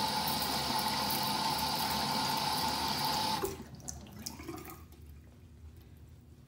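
Bathroom sink tap running steadily, then turned off suddenly about three and a half seconds in. After that, only the faint rub of a towel patting a face dry.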